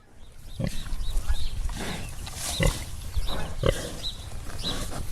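Pigs grunting, with short high squeals among the grunts, starting about half a second in.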